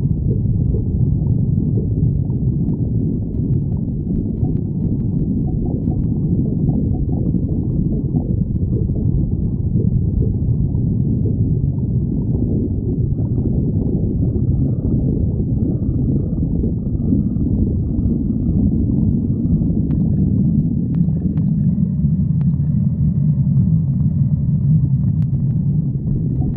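A badger's stomach growling, low and continuous.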